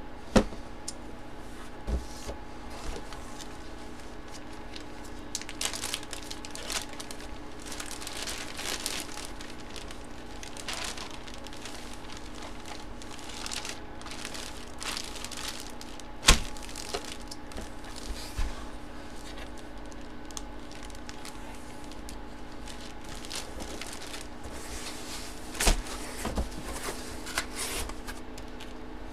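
Clear plastic bag crinkling and rustling as a folded football jersey is handled and slid into it, with a few sharp knocks against cardboard, the loudest about halfway through.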